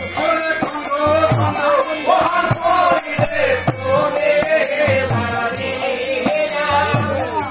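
Live jatra stage music: a voice singing into a microphone over harmonium, with a hand drum and small hand cymbals striking a steady beat.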